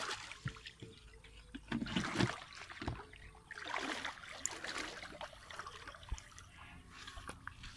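Muddy water splashing and sloshing as a man wades through a shallow canal and gropes in it with his hands, in uneven surges, the strongest about two and four seconds in.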